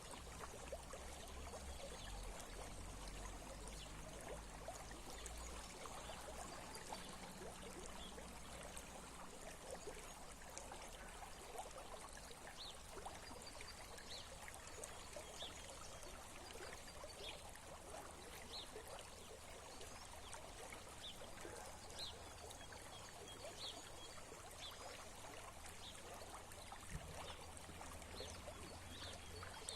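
Small stream trickling and gurgling steadily over stones. Faint short high-pitched chirps repeat over it from about the middle on.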